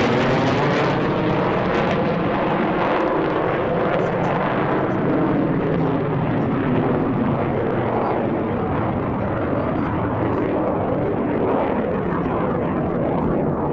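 Jet engine roar from a Blue Angels F/A-18 climbing straight up, a continuous noisy roar with a sweeping, phasing quality at first. It is loudest at the start and eases slightly as the jet climbs away.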